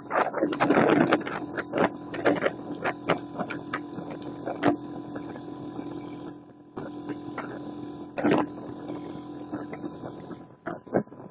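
Motorcycle engine running at a steady cruising pace under heavy wind buffeting on the microphone. The steady engine note drops away about ten seconds in.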